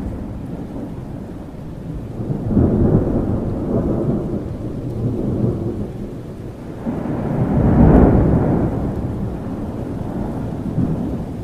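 Thunderstorm: steady rain with rolling thunder, two long low rumbles swelling up, the second and louder one about two-thirds of the way through.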